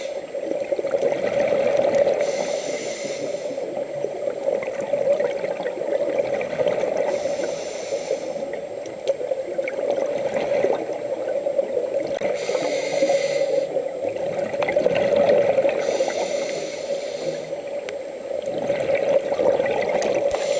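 Scuba diver breathing through a regulator underwater: five rushes of exhaled bubbles, one every four to five seconds, over a steady low hum.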